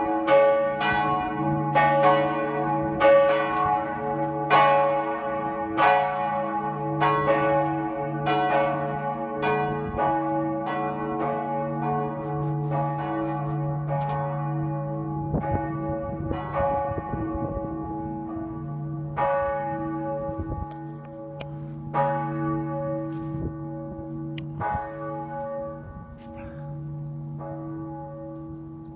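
Two church bells swinging and ringing together in a sammanringning, struck over and over with their long hum carrying under the strokes. Over the second half the strokes come further apart and grow softer as the bells wind down.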